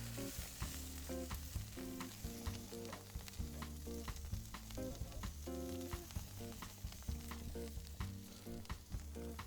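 Strip steak sizzling and crackling on a gas grill, with music playing underneath.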